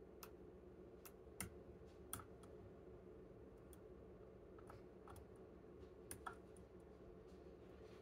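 Small, sharp metallic clicks of a flag pick working the pins of a TESA TK100 dimple lock cylinder under tension, about ten scattered irregularly over several seconds, the loudest a few near the start and a pair near the end, over faint room hum.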